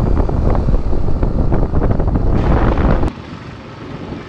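Wind buffeting the microphone during a scooter ride, a loud rumble that cuts off suddenly about three seconds in, leaving a much quieter steady hiss.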